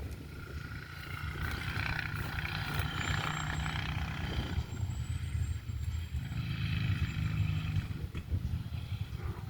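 Motorcycle engine, a Honda Tornado dirt bike, running steadily, its note swelling twice: once about a second and a half in and again around seven seconds.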